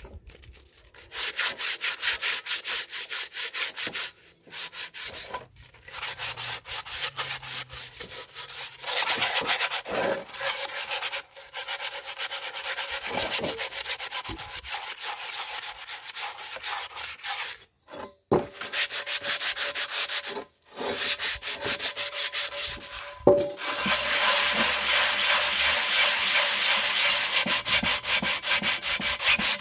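Sandpaper scrubbing rust off an old iron pot by hand in quick back-and-forth strokes, stopping briefly several times. About three-quarters of the way through it becomes louder and steadier.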